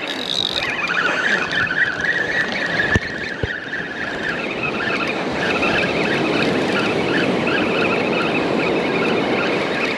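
Spinning fishing reel whirring as line is wound in over breaking surf. It makes a steady high whine for the first few seconds, then a broken, wavering whine. Two sharp clicks come about half a second apart near the middle.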